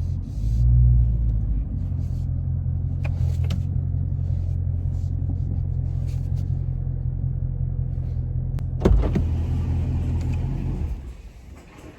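Dodge Charger Scat Pack's 392 HEMI V8 idling with a steady low rumble, heard from the cabin, with a sharp click about nine seconds in; the engine is switched off about eleven seconds in.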